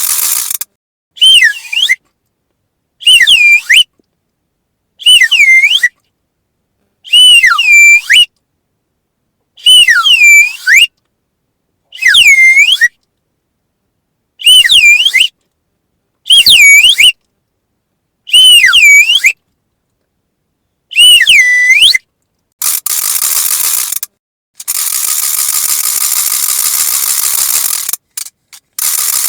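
A whistle for calling dogs, blown in about ten short blasts roughly two seconds apart, each one dipping and rising in pitch. Near the end a wooden ratchet noise maker is spun, a rapid clatter lasting about five seconds.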